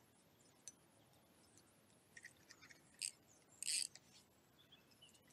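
Near silence, broken by a few faint small clicks and ticks, with a short scratchy rustle about three and a half seconds in.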